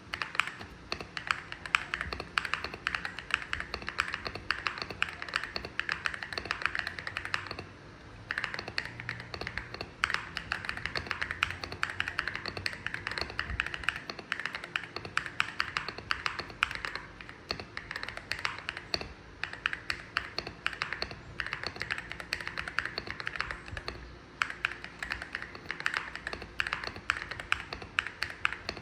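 Zuoya GMK67-S mechanical keyboard with Ajazz Moon Yellow switches, fully foamed and fitted with XDA-profile keycaps, being typed on in fast, continuous runs of keystrokes. There are brief pauses about 8, 14 and 24 seconds in.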